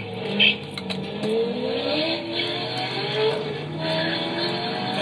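Two Chevrolet Corvettes' V8 engines accelerating hard from a standstill, the engine note climbing and dropping back at each of several gear changes, with a short sharp burst about half a second in.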